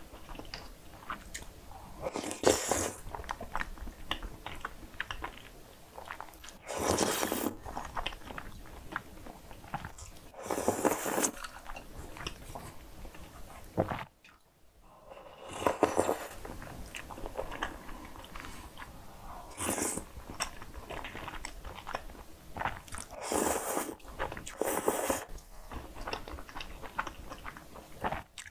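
Close-miked eating of creamy pasta: wet chewing and mouth sounds, broken by several loud slurps of thick noodles about a second each, with a short quiet pause a little after halfway.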